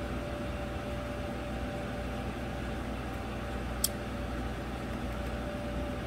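Steady fan-like hum with a faint steady whine in it, and a single sharp click about four seconds in.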